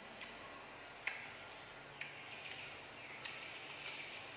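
Close-up eating sounds: sharp wet mouth smacks while chewing raw napa cabbage leaf and krill, about one a second, five in all.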